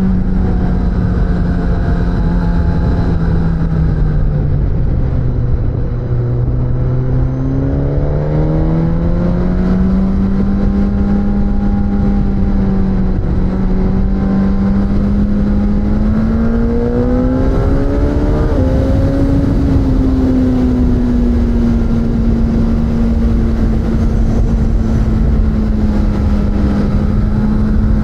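Suzuki GSX-S1000's inline-four engine under way on the road: its note drops as the throttle eases a few seconds in, climbs again and holds steady, rises higher just past the middle, then settles back to a steady cruise. A constant rush of wind noise runs underneath.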